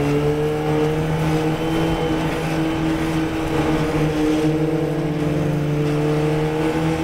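Formula Ford racing car's 1600 cc Ford Kent four-cylinder engine running at a fairly steady speed under way, its pitch dipping slightly and then rising gently near the end.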